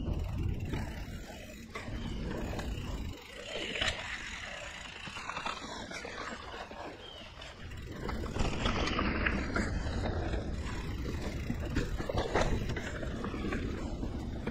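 A 2017 Liv Pique 3 mountain bike being ridden along a dirt singletrack: the tyres roll over the trail, the bike rattles over bumps, and a few sharp knocks come through. Wind rumbles on the chest-mounted camera's microphone. The noise eases for a few seconds near the start and picks up again past the middle.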